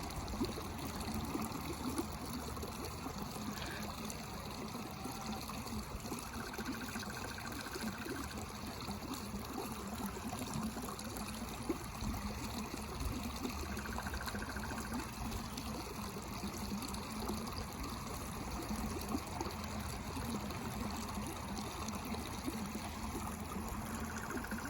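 Water trickling steadily, with a faint low steady hum beneath it.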